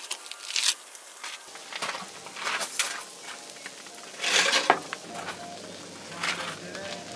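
Camp cooking: a utensil clinking and scraping against a pan in several short strokes, one longer scrape a little past the middle, over food sizzling faintly in the pan.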